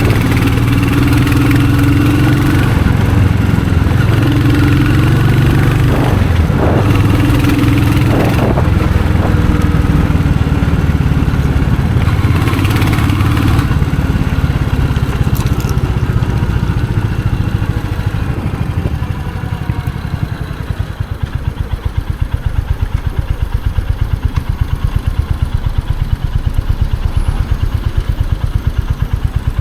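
Royal Enfield Hunter 350's single-cylinder engine and exhaust running under way, with a few shifts in engine speed in the first half. About two-thirds of the way in it drops to an idle with an even, regular thump.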